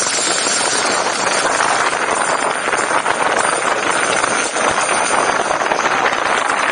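RedWheels Crosser dual-motor electric scooter (two 1,200 W motors) riding over a rough road surface: a steady, loud rushing of its knobby tyres rolling on the road, with no clear motor whine standing out.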